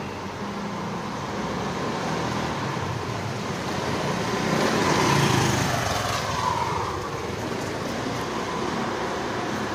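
Road traffic noise that swells as a vehicle passes about halfway through, then eases.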